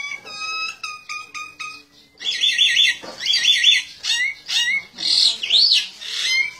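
A myna calling in quick runs of short, sharp chirps, several a second, becoming louder and trilled from about two seconds in, with a few rising-and-falling whistles near the end.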